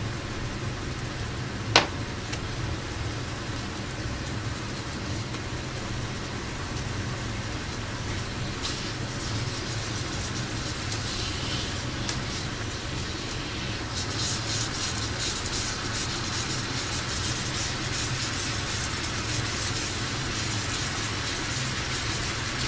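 Soy-and-sake braising sauce boiling hard on high heat in a frying pan around pork belly blocks: a steady crackling sizzle over a low hum, turning brighter and busier about two-thirds of the way through. One sharp click about two seconds in.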